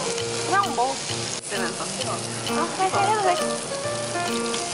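Pork belly and pork neck sizzling on a tabletop barbecue grill, a steady hiss of frying fat, under background music with a steady beat.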